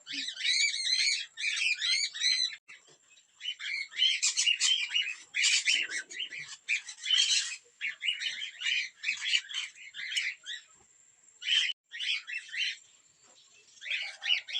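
Pet birds chirping and squawking: dense runs of short, high, quickly repeated calls in bursts, with brief pauses between them.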